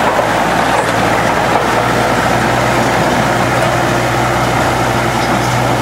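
Vintage tractor engine running steadily under load while pulling a weight-transfer sled, with a constant, unchanging pitch.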